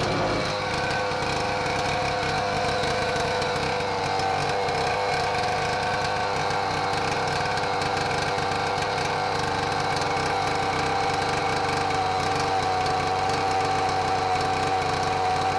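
Two-stroke chainsaw engine running at a steady speed, exhausting through a long straight pipe fitted to its muffler.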